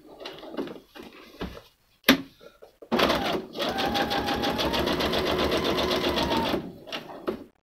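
Electric domestic sewing machine stitching through paper: after a sharp click about two seconds in, the machine runs steadily for about three and a half seconds with rapid, even needle strokes, then stops.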